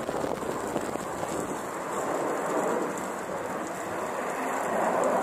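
Jet engine noise from a formation of four fighter jets passing overhead: a steady rushing noise that gets a little louder near the end.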